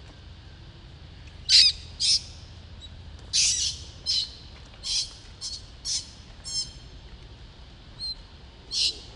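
Infant macaque giving a series of about ten short, high-pitched screams and squeals, spaced irregularly, the loudest two within the first two seconds.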